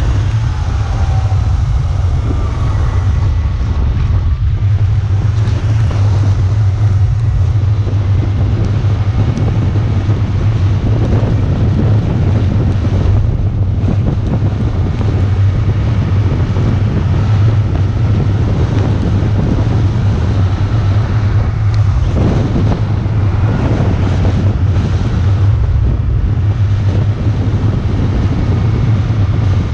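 Loud, steady wind rumble on the microphone of a camera moving fast down a mountain road.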